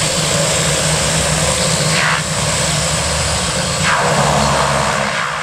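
A North American Rockwell OV-10B Bronco's twin Garrett T76 turboprop engines running at taxi power. The propellers make a low drone under a steady high turbine whine, and the sound swells slightly about four seconds in.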